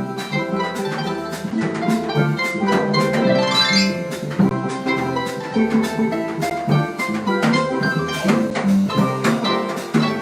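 A small harp-led Brazilian jazz band playing live: plucked harp notes over percussion and a low bass line, with a quick upward run about three to four seconds in.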